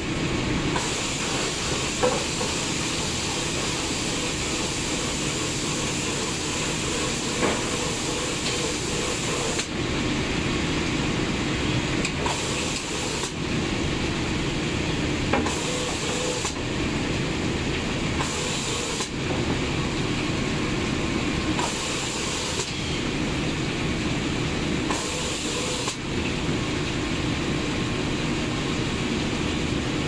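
Automatic spray-painting machine running with a steady mechanical hum, its spray guns hissing, the hiss cutting in and out several times. A few light knocks.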